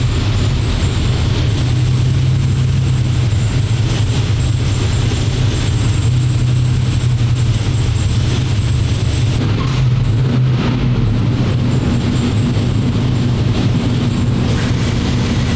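Engine running steadily at a constant speed, a loud, even low drone with a faint high whine above it and no revving.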